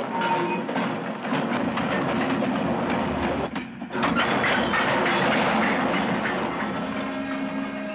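Digital steam sound from a Dapol B4 model tank engine: a steam locomotive's hissing and chuffing as it shunts slowly, with a short drop in the sound about three and a half seconds in.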